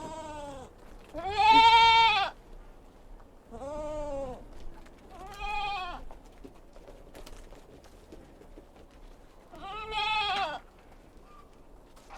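Kid goats bleating five times, each call rising and falling in pitch. The second call, about a second and a half in, is the loudest and longest, and there is a longer gap before the last one.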